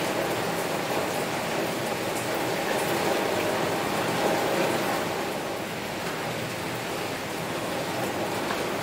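Heavy rain falling on a window: a steady hiss of rain, with scattered ticks of single drops.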